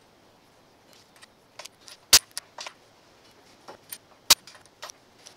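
Steel washers clinking lightly as they are set out on a steel bench, with two sharp metallic snaps, about two seconds in and about four seconds in, from a center punch marking the washers for drilling.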